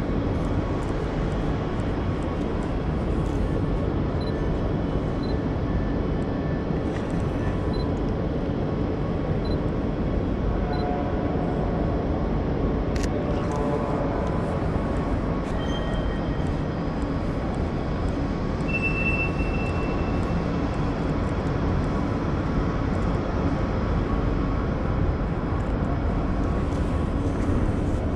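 Steady low rumble of a large railway station hall, with a single faint click about thirteen seconds in and a brief high beep a little later.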